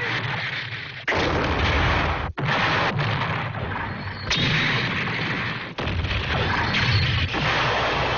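Cartoon sound effects of tank cannon fire and explosions: a string of loud blasts, each breaking in suddenly, a new one every second or two.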